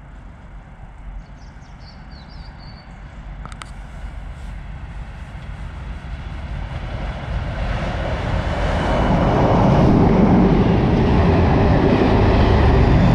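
Class 37 diesel locomotive with its English Electric V12 engine, hauling an ultrasonic rail-testing unit, approaching and then passing through at speed. The sound builds steadily from faint to loud as the engine and the wheels on the rails draw near, and is loudest in the last few seconds as the train rushes past.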